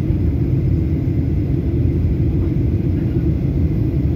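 Jet airliner cabin noise heard from a window seat in flight: a steady low rumble of the engines and the airflow over the fuselage.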